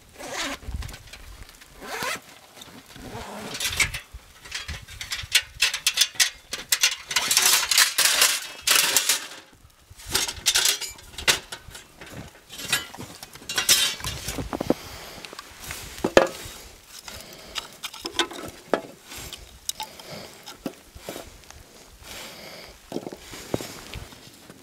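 Camp gear being handled: rustling, knocking and clinking as a canvas bag is unpacked and a folding wooden stand is set up, in irregular bursts that are busiest in the first half.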